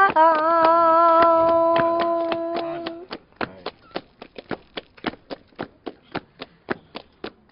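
A woman's voice holds one long, steady sung flamenco note for about three seconds over rhythmic hand clapping. Then the flamenco palmas go on alone at about four claps a second, keeping the song's beat.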